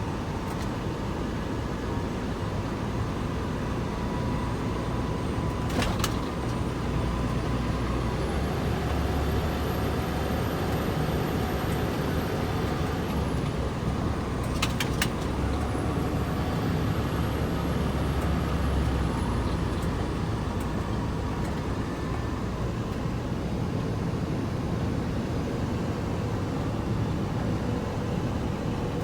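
Truck driving, heard from inside the cab: a steady rumble of engine and road noise, with a few sharp clicks near a quarter and half way through.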